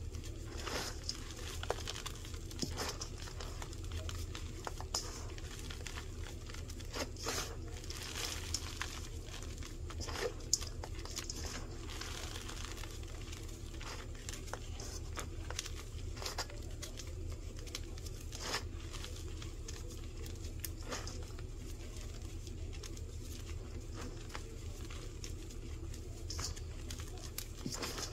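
Hands squeezing and raking through crushed dyed baking-soda blocks, the powder and small lumps crunching and crackling in irregular small clicks.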